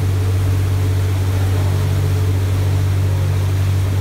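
Tour boat's engine running steadily under way, a loud low drone over the rush of water churned up in its wake.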